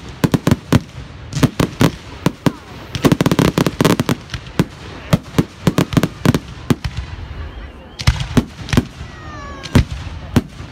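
Fireworks display: aerial shells bursting in rapid, irregular bangs and crackles, thickest about three to four seconds in, with a whistle from a firework about eight seconds in.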